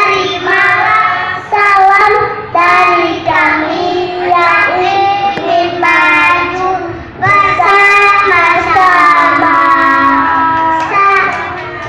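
Young children singing a song, loud, in long held notes.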